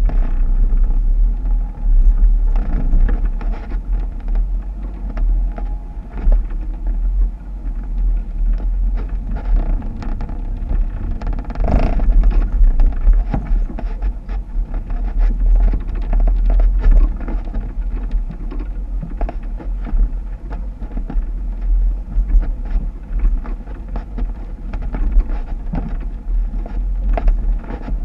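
Jeep running off-road with a continuous low rumble and scattered knocks, and one sharp knock about twelve seconds in.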